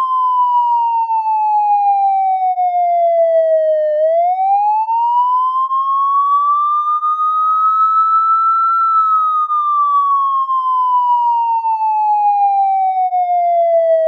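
Police siren in a slow wail: a single clean tone sliding down, sweeping back up from about four seconds in, and falling again over the last five seconds.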